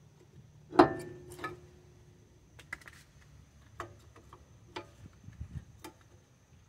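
Metal clinks and knocks of a car's brake caliper being handled and fitted over the disc rotor: one sharp clank with a brief metallic ring about a second in, then lighter scattered clicks.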